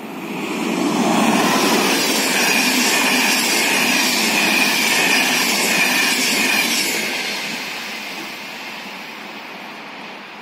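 Passenger train passing close by over a level crossing: a loud rushing of coaches over the rails that builds within the first second, holds for about six seconds with a high steady whine over it, then fades away.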